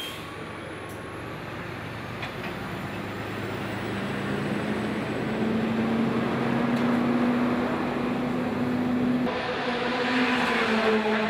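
A steady engine drone that grows louder and rises a little in pitch, with a brief rush of noise near the end.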